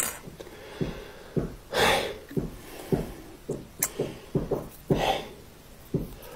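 A man eating condensed chicken noodle soup straight from the can: irregular gulps and wet mouth clicks, with two heavy noisy breaths about two and five seconds in.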